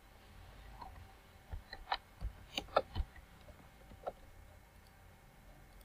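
Faint clicks of a computer mouse and keyboard entering a drawing command: about half a dozen quick clicks from about a second and a half in, then one more near four seconds.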